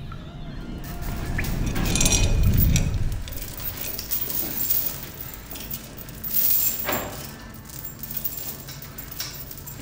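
Heavy metal chains rattling and clinking as they are pulled and strained against, in a string of short irregular clinks.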